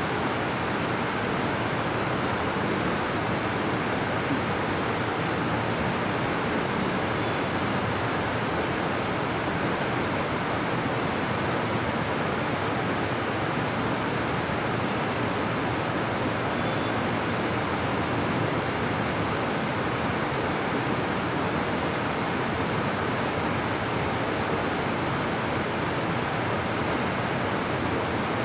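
Steady, even rushing noise of the hall's room tone, with no voices or other events.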